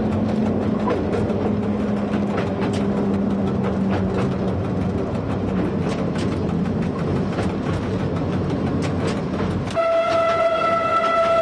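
Duro Dakovic narrow-gauge diesel railcar running along the line, heard from the front of the train: engine drone with a steady clatter of wheels over the rail joints. About a second and a half before the end, its horn starts a steady blast as it nears a level crossing.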